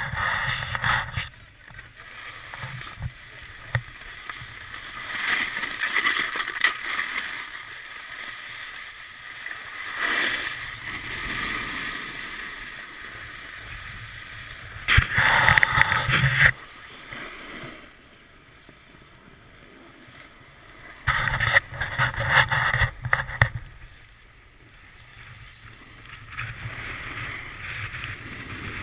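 Snowboard sliding and scraping over the snow in a steady hiss that swells and fades with each turn, with two louder rough stretches, one about halfway through and another a few seconds later.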